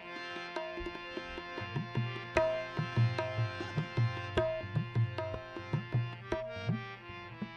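Instrumental interlude of a bhajan: tabla playing a rhythm under held melody notes. From about two seconds in, the bass drum's strokes come in and slide in pitch.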